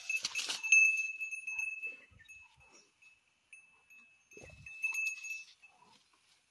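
Small bell on a calf's neck ringing as the calf moves, a string of clinks that is loudest about a second in and dies down after about five seconds. A short rustle at the start.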